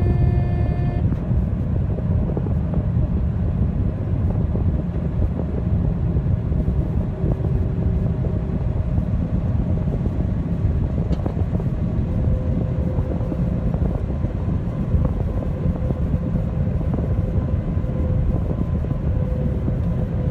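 Combine harvester running steadily in a cornfield, its engine and machinery making a constant low noise. A steady high tone stops about a second in.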